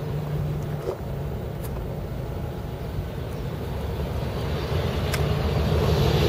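Truck engine idling, a steady low hum heard from inside the cab that grows louder near the end, with a couple of faint clicks.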